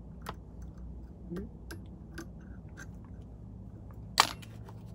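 Small clicks and taps from a whip-finish tool and thread being worked at the head of a fly in a fly-tying vise, with one much sharper click about four seconds in, over a low steady hum.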